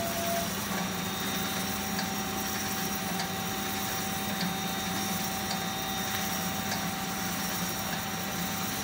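Hyd-Mech S23A horizontal bandsaw running with a steady machine hum and a held tone, as its saw head rises. A faint light tick comes about once a second.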